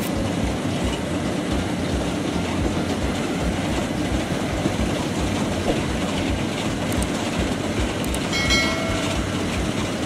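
Rice combine harvester running steadily as it drives through the field, its engine and machinery making a continuous, even mechanical noise.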